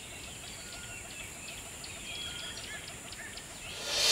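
Small birds chirping and calling, many short chirps and a few brief whistles, over a steady outdoor hiss. Near the end a rising swell of sound comes in.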